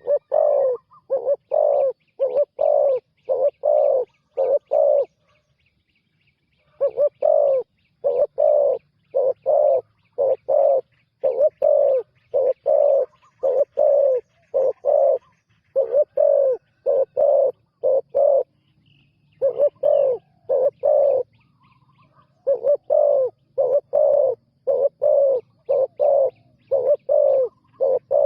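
Spotted dove cooing: short low coos repeated about twice a second in long runs, broken by a few pauses of a second or two. A faint fast chirping sits above it.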